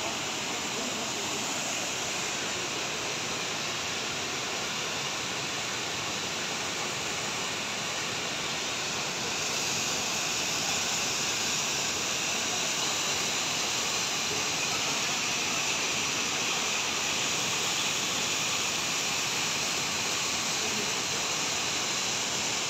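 Waterfall: water falling and splashing in a steady rushing hiss, a little louder from about nine seconds in.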